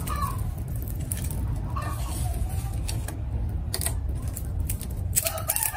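Wood fire crackling in a concrete cookstove while dry twigs and branches are handled and broken into it, giving scattered sharp snaps and clicks over a steady low rumble.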